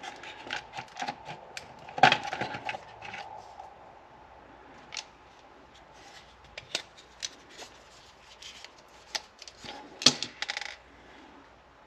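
Irregular light clicks and taps of small plastic and metal parts being handled as the cover of a BMW steering angle sensor is worked open, with a louder clatter about two seconds in and again about ten seconds in.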